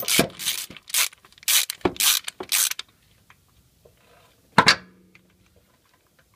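A thread tap being turned back out of a freshly tapped bolt hole in a Honda Civic B16 transmission case with a ratcheting tap handle, one rasping ratchet stroke about twice a second, stopping about three seconds in. A single sharp metallic knock comes near the end.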